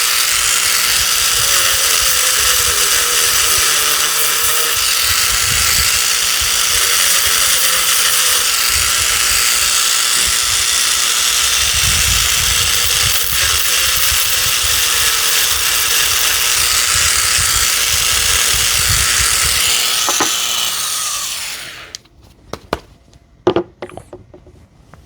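Small handheld rotary tool running steadily, grinding old spot welds and leftover nickel strip off the end of an 18650 cell. It winds down and stops a few seconds before the end, followed by a few light clicks.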